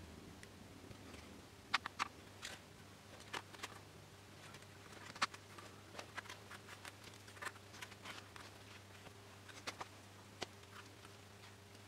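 Light, irregular clicks and taps of balsa wood parts, a glue bottle and a weight being handled and set down on a plastic-covered workbench, over a faint steady hum.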